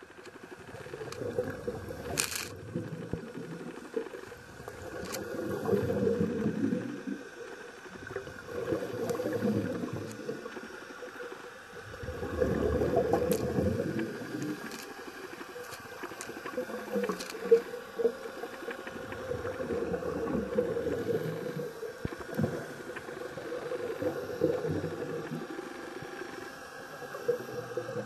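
Scuba regulator breathing heard underwater: exhaled bubbles rumble and gurgle in swells every three to four seconds, with a few sharp knocks in between.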